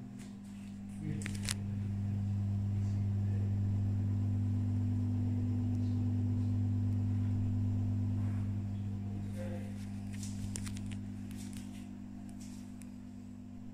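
A steady low electrical hum that swells for several seconds and then fades back, with a few light clicks and knocks near the start and near the end.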